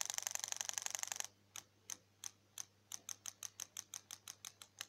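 Swimming Nemo robot toy fish's tail mechanism clicking: a fast run of clicks for about a second, then after a short pause slower, evenly spaced ticks, about five or six a second.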